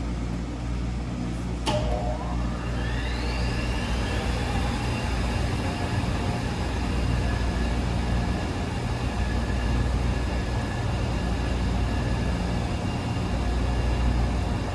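Wascomat Senior W125 washer-extractor running with a steady low hum. About two seconds in there is a click, then a whine that rises in pitch as the drum motor speeds up and settles into a steady tone.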